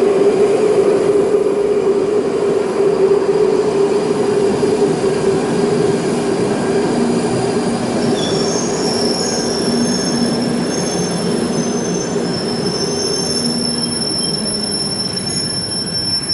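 London Underground 1995-stock Northern line train running into the station and braking to a stop. A steady low drone fades as it slows, and high thin squealing tones come in about halfway through as it comes to a halt.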